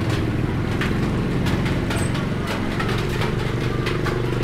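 A motor vehicle's engine running steadily, its pitch shifting a little partway through, with scattered light clicks over it.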